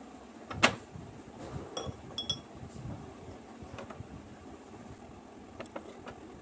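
A metal spoon clinking against a ceramic plate and a glass jar while pickle is spooned into the jar: one sharp clink about half a second in, then scattered lighter taps over a steady hiss.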